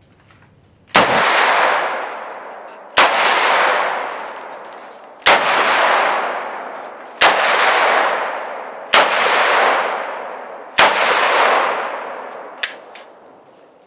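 Six gunshots fired one at a time, roughly two seconds apart, each followed by a long echoing decay. A smaller sharp click comes near the end.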